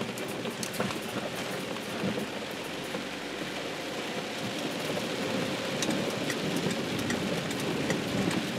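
Rain falling steadily on a moving car, heard from inside the cabin, with the car's engine and tyre noise underneath.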